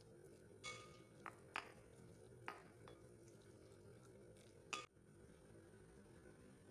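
Five light clinks of a spoon against a mixing bowl while the chicken tartlet filling is stirred. One clink about half a second in rings briefly, and the loudest comes near the end.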